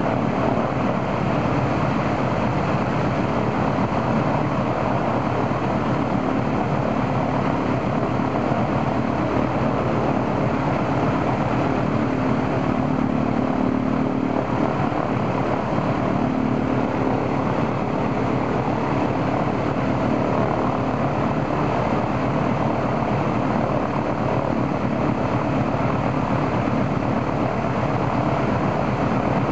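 The right engine of an Ilyushin Il-14, an ASh-82T fourteen-cylinder radial, running steadily with its propeller turning. This is a ground run-up to check the engine after its oil cooler was replaced.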